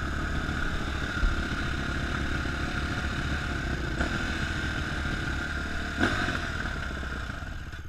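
Dirt bike engines idling together, a steady running note with a fast even pulse, with a few small knocks.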